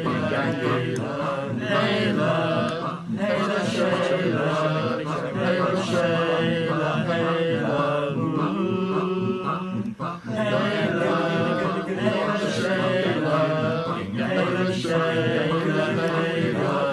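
Several young men's voices chanting a campfire song together in overlapping parts, with a brief break about ten seconds in.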